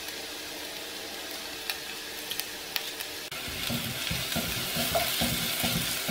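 Sliced onions and mustard seeds sizzling in hot oil in a non-stick pot, with a few sharp crackles as curry leaves and coriander leaves go in. A little past halfway, a wooden spatula starts stirring, scraping through the onions in quick repeated strokes.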